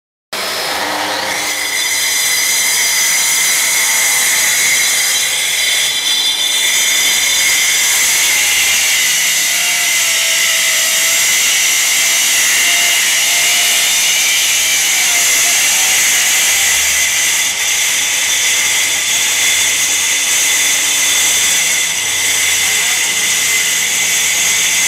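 Eibenstock EMF 150 twin-blade wall chaser running steadily at full speed: a loud, even, high-pitched whine over a hiss.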